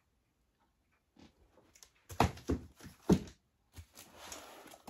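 LP record jackets being handled: a few sharp taps and knocks of cardboard sleeves as one album is put down and the next is taken from a stack, then a soft sliding rustle near the end.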